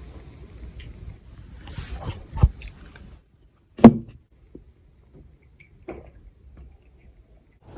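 A faint low rumble for the first three seconds, then scattered clicks and knocks. The loudest is a single sharp knock about halfway through.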